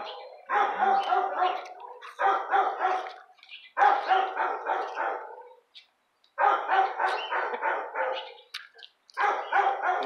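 Dog barking in repeated bouts of several barks, five bouts about two seconds apart, each starting sharply and trailing off.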